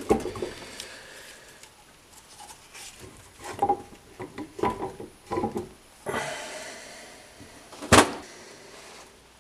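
Metal-on-metal clicks and clunks as the ring-gear carrier is worked into the BMW E46 differential housing by hand, with a rustle and then one sharp knock about eight seconds in.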